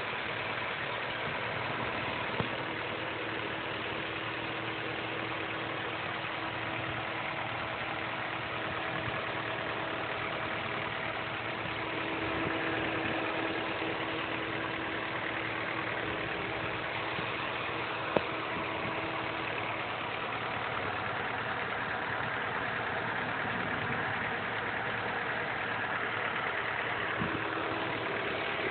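Honda Prelude's H22 four-cylinder engine idling steadily with a ticking noise that the owner cannot identify. Two sharp clicks stand out above the running, one a couple of seconds in and a louder one past the middle.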